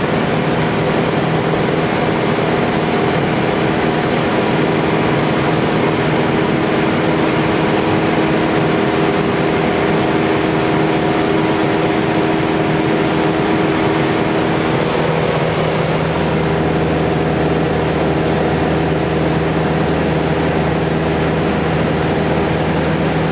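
Cessna 177B Cardinal's four-cylinder Lycoming engine and propeller running steadily in flight, heard from inside the cabin. About fifteen seconds in the tone shifts: a mid-pitched tone drops out and a lower hum grows stronger.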